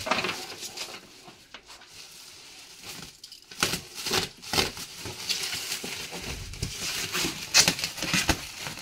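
Parcel packaging being cut open and pulled apart: irregular crinkling, rustling and tearing, with scattered clicks, busier from about three seconds in.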